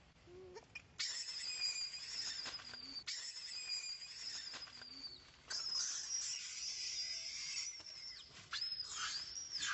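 Infant long-tailed macaque screaming: long, high-pitched wails starting about a second in, several in a row, then quicker rising-and-falling cries near the end. It is the distress tantrum of a baby being rebuffed by its mother.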